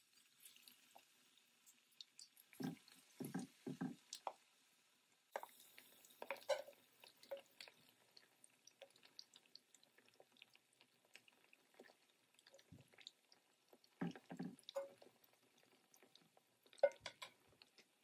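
Coated chicken pieces deep-frying in hot oil: a faint crackling sizzle, broken by a few soft knocks against the pan.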